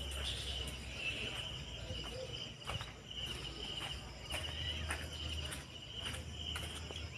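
Crickets chirping in a fast, pulsing trill that comes and goes in stretches, with a few faint clicks.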